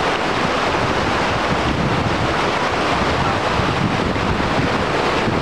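Taughannock Falls swollen by flash flooding: a loud, steady rush of floodwater pouring down the falls and churning over the rocks below.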